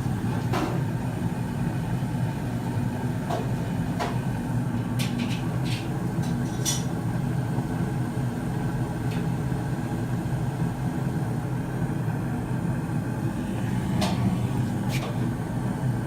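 Carrier Infinity gas furnace running: a steady low drone from the firing burner and blower, with a few short clicks scattered over it.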